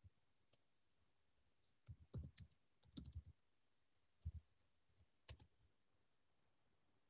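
Faint clicks and soft thumps in small clusters, about two to three seconds in, again near four seconds and once near five seconds, over an otherwise near-silent line.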